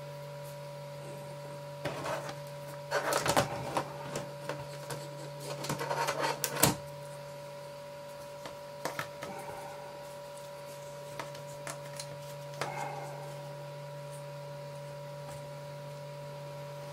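Hands moving ball python eggs into a plastic tub with a plastic grid insert: clusters of plastic clicks and rustling about two and six seconds in, then a few lighter clicks, over a steady electrical hum.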